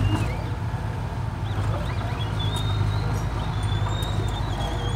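Komatsu mini crawler dozer's diesel engine running steadily as the dozer pushes soil. A thin, wavering high whistle sits above it from about a second and a half in.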